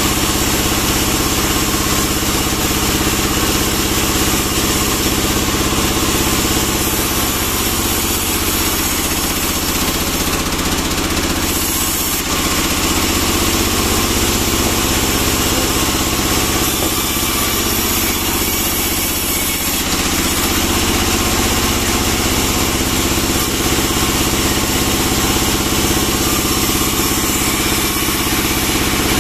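Sawmill band saw and its power unit running steadily, a continuous machine drone. Between about 8 and 20 seconds the low hum dips and shifts as a pine log is fed into the blade.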